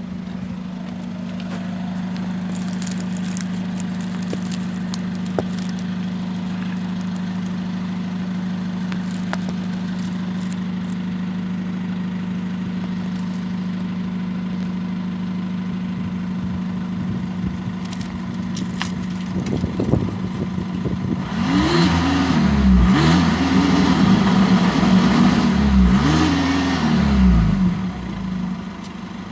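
2012 VW Golf GT 2.0 TDI diesel engine idling steadily, then revved up and down several times near the end. The engine has a fault that the owner takes for a failing turbo; it turned out to be an EGR valve stuck open and a turbo that needed replacing.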